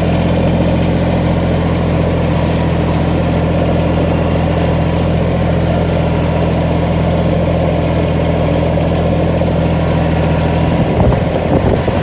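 Tractor engine running steadily; about eleven seconds in its even note breaks up into a rougher, slightly louder sound.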